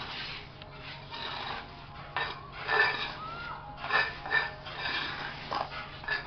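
A hand scoop scraping wet cement mortar across a concrete floor while packing it around the round base of a cement water jar, in several separate scraping strokes.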